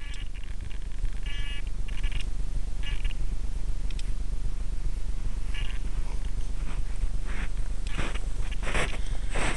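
Rough low rumbling buffeting picked up by the onboard camera of an electric-powered RC delta wing. It rises in level about a second in, is broken by short hissing bursts, and ends with several louder scraping, rustling noises.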